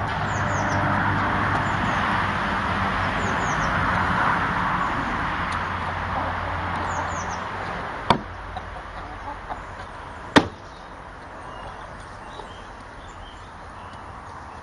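Short high chirps from birds in small clusters over a steady background with a low hum, which fades about eight seconds in. Two sharp knocks follow, about eight and ten seconds in, the second louder.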